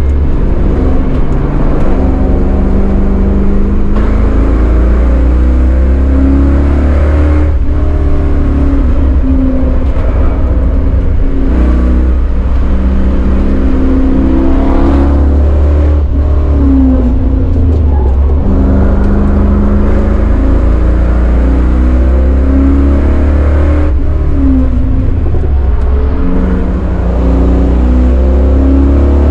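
Chevrolet Caprice 9C1's LT1 V8 at racing speed, heard from inside the cabin: a heavy low drone whose pitch repeatedly rises and falls as the engine pulls, lifts and is shifted through the T56 six-speed manual.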